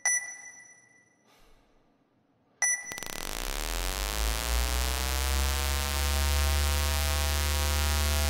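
Card-terminal keypad beeping as a key is pressed, once at the start and again about two and a half seconds in. Just after, a loud, deep droning hum starts up, its tone rising and then levelling off as it holds.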